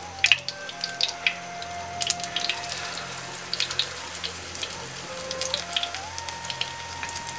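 Battered potato slices frying in shallow hot oil: a steady sizzle full of quick crackling pops, with the loudest pops just after the start.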